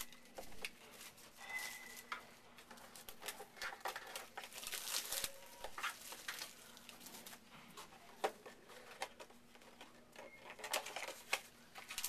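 Packaging of a 2014 Panini Hot Rookies football card box and its packs crinkling and tearing as it is opened by hand, in irregular rustles and small crackles.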